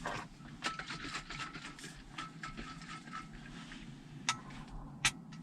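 Light handling noises with many small clicks and rustles, and two sharper clicks near the end; a faint thin tone comes and goes in the first half.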